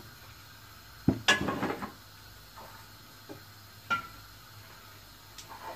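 Kitchen cookware being handled at a gas stove: a handful of separate clicks and clinks, the loudest a sharp click with a short clatter about a second in, then a few lighter ones.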